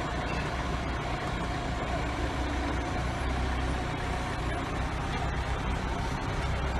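Forklift engine running steadily with a low, even hum.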